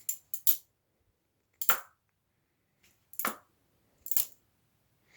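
Butterfly knife handles clacking against each other and the blade as the knife is flipped open and shut: a quick run of three metallic clacks at the start, then single clacks roughly every second and a half.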